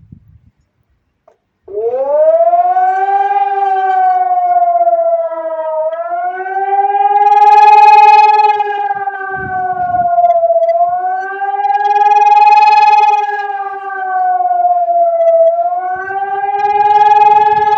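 Civil-defence siren sounding in a siren test. It cuts in about two seconds in and climbs quickly, then wails, its pitch rising and falling slowly about every four to five seconds.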